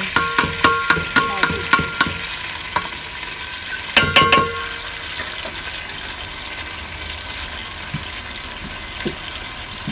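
Chopped onions sizzling and frying as they drop into hot oil in a steel pot, with a steel spoon tapping and scraping a perforated steel colander: a quick run of ringing metal taps in the first two seconds and another cluster about four seconds in.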